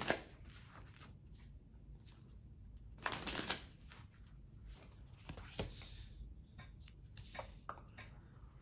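A tarot deck being shuffled by hand in short, noisy bursts, the clearest about three seconds in, then a card laid down on the table near the end.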